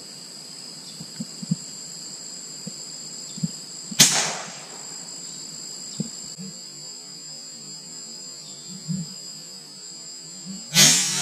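Two sharp shots fired at birds in the trees, one about four seconds in and a louder one near the end that fades out more slowly. A steady high-pitched insect drone runs underneath.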